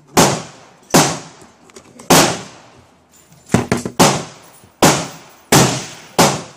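Gunshots from nearby firing, about nine in all, roughly one a second with two close together about three and a half seconds in, each followed by a long echoing tail.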